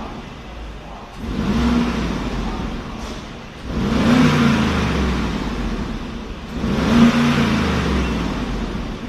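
Mercedes-Benz G500's twin-turbo 4.0-litre V8 through its stock exhaust, revved three times while standing still. Each rev climbs and then falls back toward idle, about three seconds apart.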